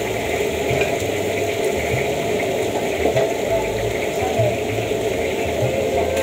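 Gas wok burner running under a wok, a constant rushing noise that holds steady throughout.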